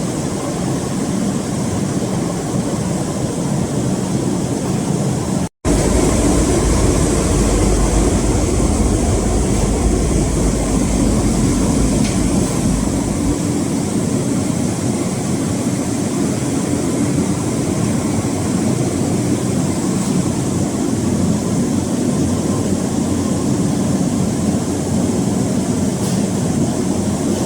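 Hydraulic cotton baler running: a steady machine drone. It drops out for an instant about five seconds in, then carries on with a deeper low rumble until about thirteen seconds in.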